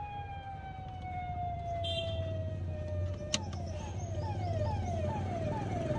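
Ahuja mobile PA amplifier siren sounding through its hooter (horn speaker) in its original built-in tones, with the sound-changing card switched off. First comes one long, slowly falling wail. About three seconds in there is a click, and then a fast falling yelp that repeats about twice a second.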